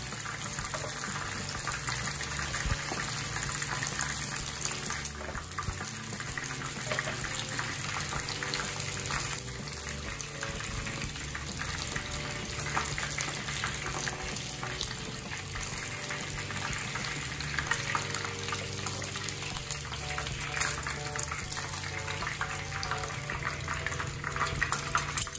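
Hot oil in a frying pan sizzling and crackling steadily around pieces of chicken wing during the first, gentler fry of a double fry.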